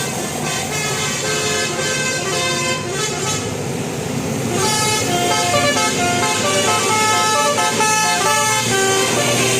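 Bus 'telolet' multi-tone horn playing a melody of short notes that change pitch in quick succession. The notes thin out briefly a few seconds in, then come back louder.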